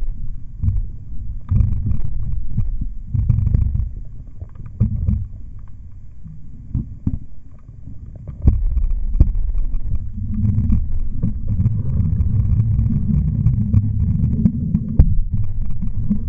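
Muffled low rush and rumble of water streaming over a camera held underwater from a moving canoe, with scattered knocks. It comes in surges, eases off for a few seconds, then turns steadier and louder about eight seconds in.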